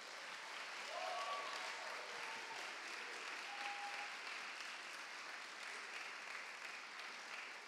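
Audience applauding, with a few short cheers in the first few seconds; the clapping eases slightly toward the end.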